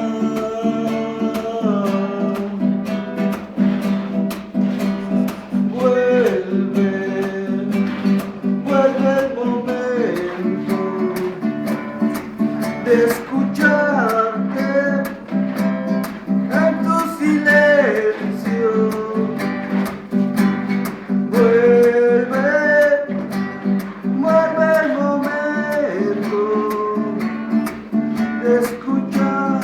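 Acoustic guitar strumming steady chords, with a wandering melody line over them and no sung words.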